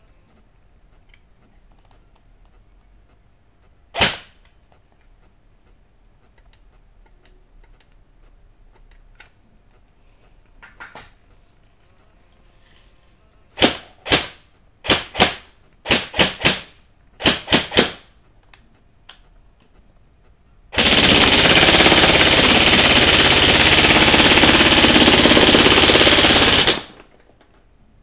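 Airsoft PPSh-41 electric gun (AEG) firing: a single shot about four seconds in, then a string of short bursts in quick pairs and triples, then one long full-auto burst of about six seconds that cuts off sharply.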